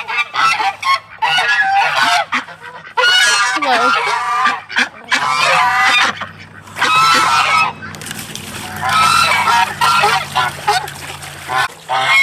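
Geese honking over and over, the calls coming in loud runs with short gaps between them.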